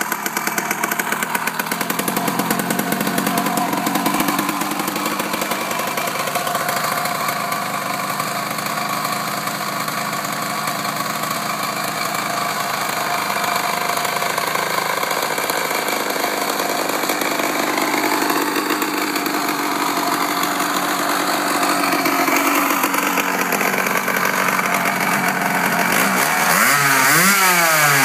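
Dune buggy engine running steadily at idle, then revved up and down several times near the end.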